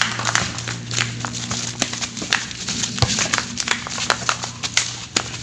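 Pickup basketball on a concrete court: quick, irregular slaps and knocks of players' flip-flops and the ball on the concrete. A steady low hum runs underneath.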